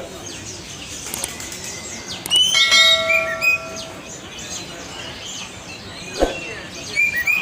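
Many caged songbirds chirping and calling at once, with a louder held whistled note about two and a half seconds in. Two brief knocks, one at the start and one about six seconds in.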